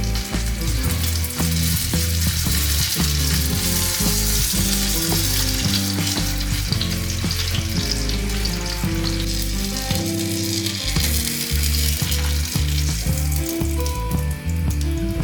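Food frying in a hot pan, a steady sizzle that swells and eases, over background music with a bass line.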